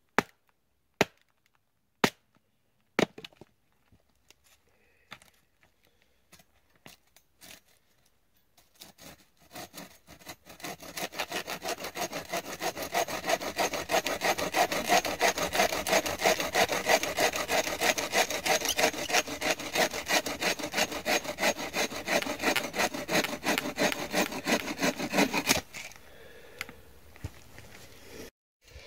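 Four sharp hatchet chops into wood about a second apart, then after a pause a bow saw cutting through a log in steady rhythmic back-and-forth strokes for about fifteen seconds, stopping abruptly near the end.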